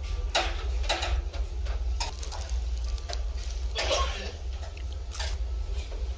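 Mealtime clatter: a handful of short clicks and knocks of tableware and chopsticks, some close together, over a steady low rumble of the ferry underway.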